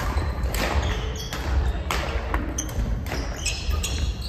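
Badminton rally: rackets hitting a shuttlecock in a quick, uneven series of sharp pops that ring in a large gym hall, with short high sneaker squeaks on the wooden floor near the end.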